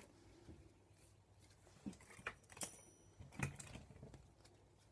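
Handling of scrap wire and cable: a few light clicks and knocks, the loudest about three and a half seconds in.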